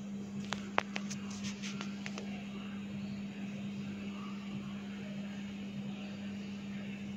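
A steady low hum, with a quick run of about eight light clicks or taps between half a second and two seconds in.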